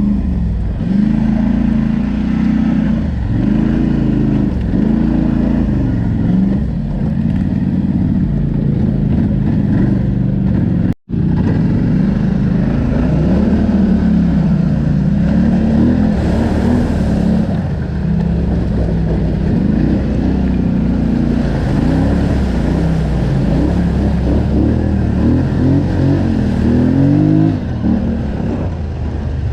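ATV engine running under changing throttle while riding, its pitch rising and falling every second or two. The sound drops out for an instant about eleven seconds in.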